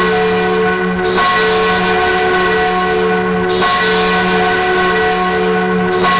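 A single church bell tolling, struck three times about two and a half seconds apart, each stroke ringing on into the next.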